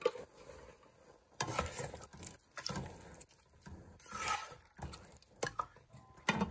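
A spatula stirring rice and chicken in a pot of liquid, scraping and knocking against the pot in irregular strokes that start suddenly about a second and a half in.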